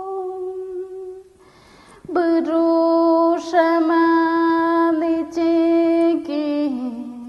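A woman's solo voice sings an ayahuasca icaro, a healing ceremony chant, in long held notes. It breaks for a breath about a second and a half in, and the melody steps down near the end.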